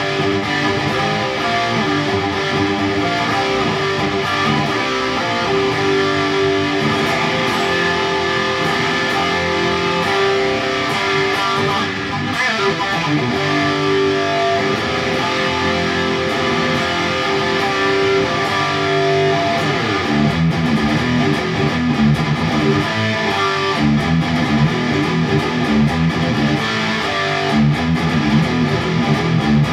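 Distorted electric guitar riff from a Kramer Pacer played through a Peavey Windsor amp head and cabinet, with a Boss SD-1 overdrive pedal pushing the amp. Sustained ringing notes give way, about two-thirds of the way in, to heavier rhythmic low chugging.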